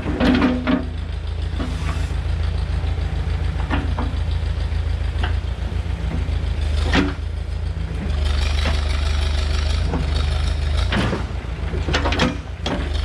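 Backhoe engine running steadily, with a few sharp metallic clanks and knocks from the digging gear, the loudest about seven seconds in and a cluster near the end.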